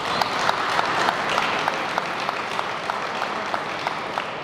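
Crowd applauding, with a steady rhythm of clapping about three claps a second running through it, easing off slightly near the end.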